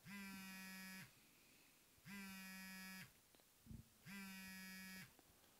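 Faint buzzing of a smartphone's vibration motor, held in the hand: three even buzzes, each about a second long, with a second's pause between them, the pulsing pattern of a call coming in. A soft knock falls between the second and third buzz.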